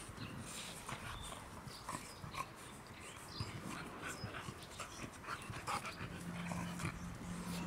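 Chow chows play-fighting on grass: scuffling and panting, with short whimpering calls. A low steady sound joins about six seconds in.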